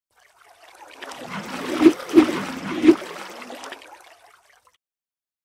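Water splashing and gurgling that swells up, peaks in three sharp splashes about two to three seconds in, then fades away.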